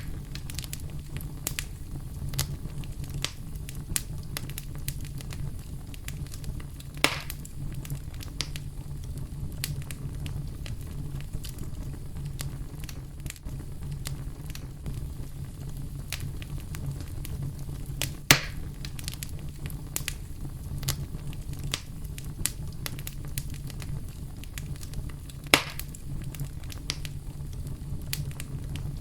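Campfire crackling with scattered small snaps and three louder pops spread through, over a steady low brown-noise rumble.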